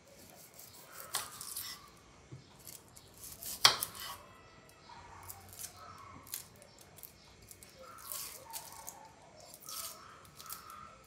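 A kitchen knife peeling the papery skins off shallots by hand: short, irregular scraping and rustling strokes, with one sharp tap about a third of the way in.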